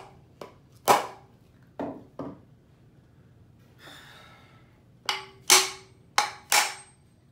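A hammer tapping on a wooden-bodied hand plane to set its iron and wedge: sharp knocks with a short metallic ring, three in the first half, a brief faint rustle, then four more in quick pairs. One blow meant for the wedge strikes the iron instead, backing the iron out.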